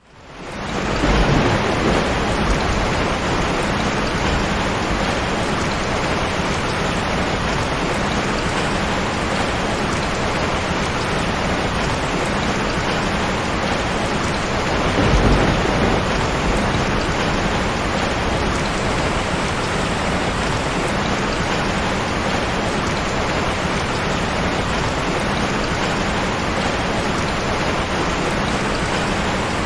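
Heavy rain pouring steadily in a thunderstorm, fading in over the first second, with low rumbles of thunder about a second in and again around the middle.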